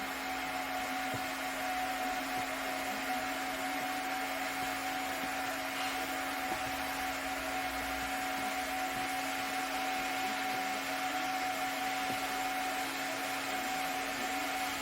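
Small electric motor running steadily: a constant whine over an even rushing hiss.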